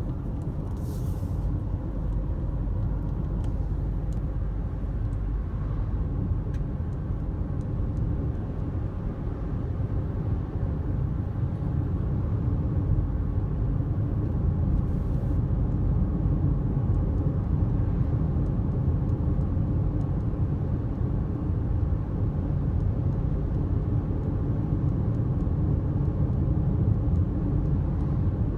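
A car's road noise heard from inside the cabin while driving: a steady low rumble of engine and tyres on asphalt, growing slightly louder about halfway through.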